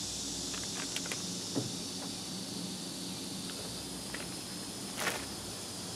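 Faint clicks and rustles of small plastic tackle packages being handled, over a steady high-pitched hiss; the sharpest click comes about five seconds in.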